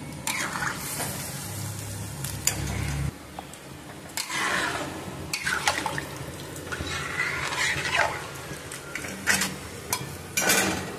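Metal spatula stirring a watery potato curry in a kadhai: the liquid sloshes and swishes, and the spatula scrapes and clinks against the pan several times. A low hum stops about three seconds in.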